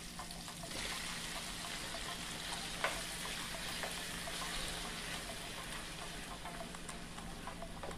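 Oil sizzling in a frying pan as flaked saltfish is added to sautéing onion, tomato and bell pepper and worked in, with one brief tap about three seconds in.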